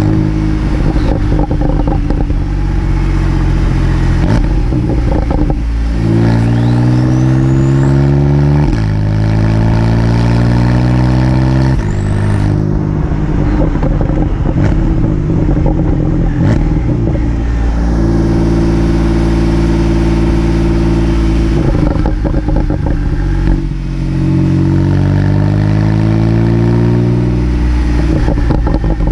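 Porsche 911 Carrera 4S (991.2) twin-turbo flat-six through its sport exhaust, its revs climbing and dropping several times. Pops and crackles come as the revs fall away, and a faint rising turbo whistle is heard now and then.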